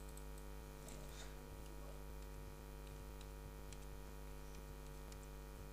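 Steady electrical mains hum, with a few faint, scattered computer-keyboard key clicks as a word is typed.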